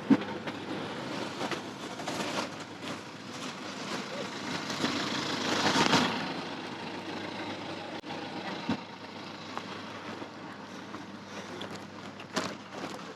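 Car engine noise in a car park, swelling to a peak about six seconds in and then fading, with a few sharp clicks and knocks.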